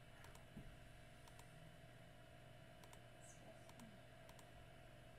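Near silence: a handful of faint, sharp computer mouse clicks, several seconds apart, over a low steady hum of room tone.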